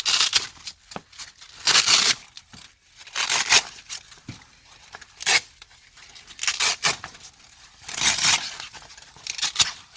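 Hook-and-loop (Velcro) strips on a seat cover being peeled apart, about seven short ripping pulls a second or two apart.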